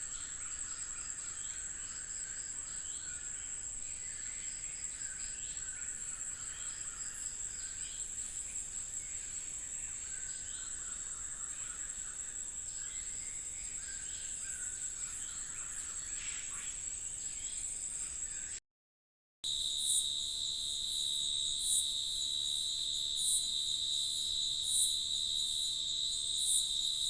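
Forest insects, crickets or similar, trilling in a steady high continuous tone, with scattered shorter calls beneath it. The sound cuts out briefly about two-thirds of the way through. Then a different steady insect tone starts, with a sharp chirp about every second and a half.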